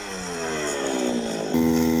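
Small two-stroke grass cutter engine running, its pitch sliding down, then jumping abruptly to a louder, steady, slightly higher note about one and a half seconds in.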